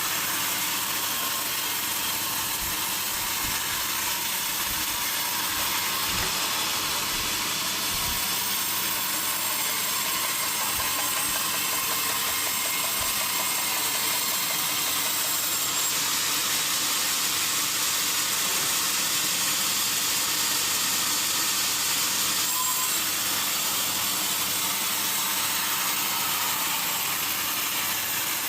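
Sawmill saw running steadily, a constant hiss with no breaks or changes in level.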